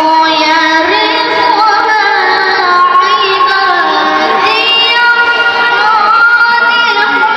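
A boy qari reciting the Qur'an in the melodic tilawah style: long, ornamented held notes that climb to a higher sustained note about five seconds in.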